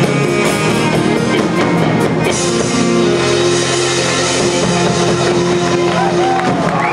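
Live rock band with drum kit and guitars playing. The drum hits stop about two seconds in and a sustained chord rings on. Whoops and cheering from the audience begin near the end.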